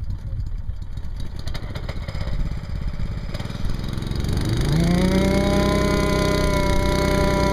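A vibracorer driving an aluminium core tube into marsh sediment starts up about four seconds in: its pitch rises quickly, then settles into a loud, steady buzz. Before that there is only a low rumble.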